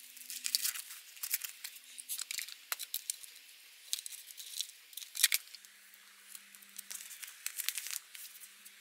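Paper and cardboard being handled: irregular crinkling and rustling of a kraft box, wrapping paper and a padded mailer, with small clicks and taps, the sharpest about five seconds in.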